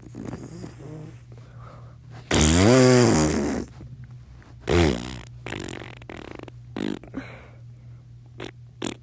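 Made-up fart noises: a long pitched one a little over two seconds in, its pitch rising then falling, then a short one about five seconds in. A few brief pops follow near the end, over a faint steady low hum.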